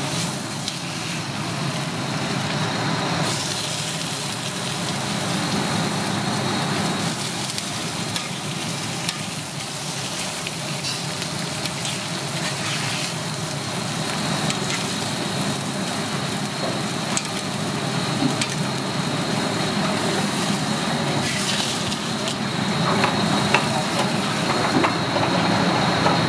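Ham slices and shredded meat sizzling on a flat-top griddle, a steady frying hiss, with the clicks and scrapes of metal tongs on the steel plate. More clinks near the end as the meat is scooped with a spatula onto a plate.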